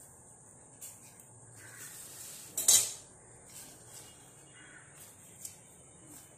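A hand handling a stainless-steel pot as herb leaves are pushed down into the water: a few scattered light knocks against the metal, with one louder clank about two and a half seconds in.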